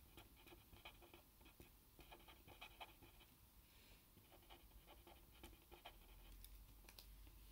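Faint scratching of a felt-tip marker writing words on paper, in clusters of short strokes.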